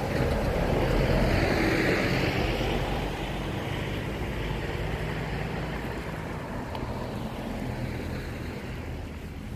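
Road traffic: a car passing on the road, its tyre and engine noise swelling over the first couple of seconds and then slowly fading, over a steady low hum.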